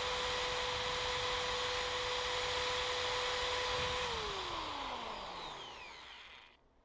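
Electric drill spinning an engine valve chucked in its jaws, with steel wool held against the valve to scrub off carbon; the motor whine holds steady, then about four seconds in the trigger is released and the whine falls in pitch and fades as the drill winds down.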